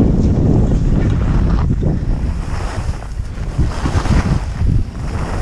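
Wind rushing over an action camera's microphone at skiing speed, mixed with the hiss and scrape of skis running over packed snow.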